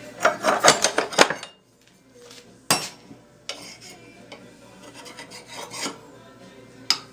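A hard stick in a metal holder scraped in several quick strokes across a piece of metal, a test of whether it is soapstone that marks; it proves too hard to write. Two sharp clicks of metal handling follow, one a little later and one near the end.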